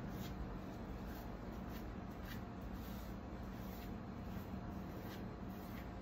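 A small paintbrush brushing finish onto carved wood, making faint scratchy strokes every second or so over a low steady hum.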